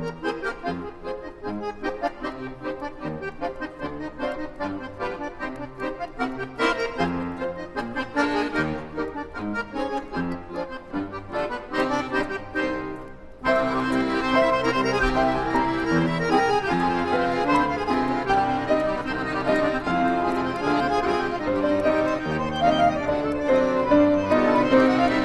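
Instrumental music on an electronic keyboard with an accordion-like voice, playing a melody over sustained chords. About halfway through it suddenly gets louder and fuller as a new section starts.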